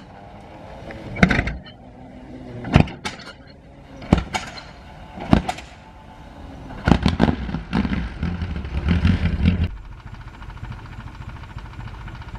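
Vintage racing car engines at the hillclimb, punctuated by several sharp cracks. The loudest stretch is a hard-running engine note about seven seconds in, which stops abruptly just under ten seconds in and leaves a quieter steady hum.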